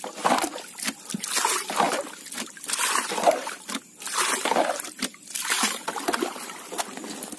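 Water sloshing and splashing as bilge water is scooped by hand out of a small fishing boat with a plastic bailer, in repeated irregular scoops. The boat is taking on water through a leaking fitting and has to be bailed continually.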